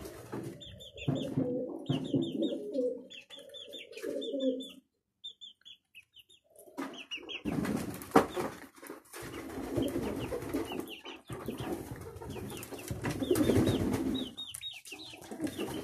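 Domestic pigeons cooing in repeated low, warbling bouts, with quick high chirps over them. The cooing breaks off for a second or two about five seconds in, then resumes over a rustling noise.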